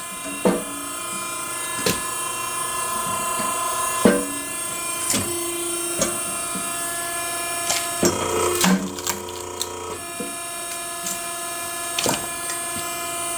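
Homemade hydraulic log splitter running with a steady motor-and-pump drone, with sharp cracks and knocks scattered through as logs are split.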